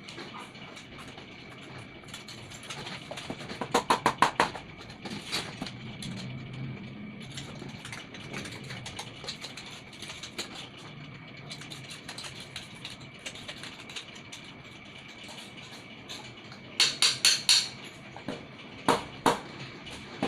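Scraping and brushing at the rust-and-moss crust clogging a Shimizu water pump's parts: two quick runs of rapid scraping strokes about four seconds in and near the end, with scattered ticks between. The crust is what keeps the pump from delivering water.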